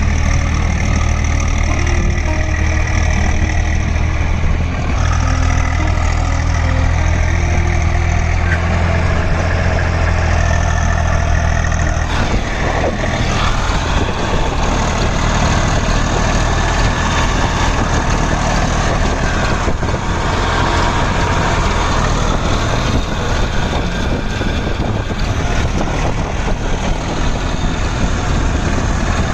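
Eicher 380 tractor's diesel engine running steadily as it pulls a trailer loaded with sacks out of a muddy field. The engine note changes about twelve seconds in, becoming rougher and noisier.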